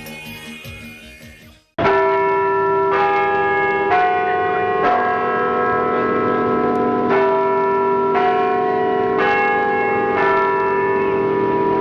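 A song with singing fades out, then about two seconds in bells start ringing suddenly. A new stroke comes roughly once a second, the tones overlapping over a held low note.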